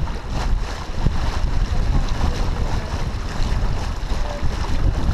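Wind buffeting the microphone over the steady rush of water along the hull of a T-10 sailboat under sail.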